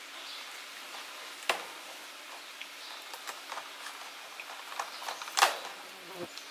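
A few sharp knocks and scattered light clicks over a steady background hiss, the loudest knock about five and a half seconds in.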